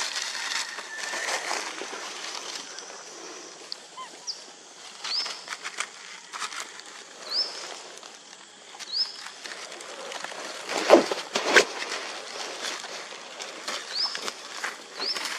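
Dry leaf litter rustling and crackling under macaques moving and feeding, with a couple of louder sharp crunches about two-thirds of the way through. About seven short, high, rising chirps are scattered through it.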